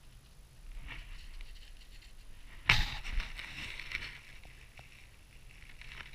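Footsteps crunching in snow, with one sharp knock close to the microphone a little under three seconds in.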